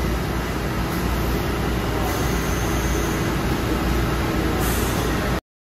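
Steady low hum and rumble of machinery in an industrial plant, with no distinct tones, cutting off suddenly near the end.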